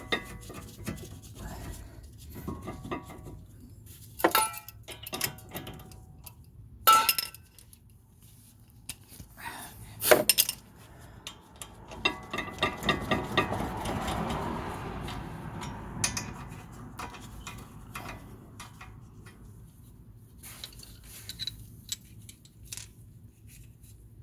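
Hand tools and steel brake parts clinking and knocking as a rear brake caliper bracket is bolted back on. A few sharp metal clinks ring briefly, and there are a few seconds of scraping near the middle.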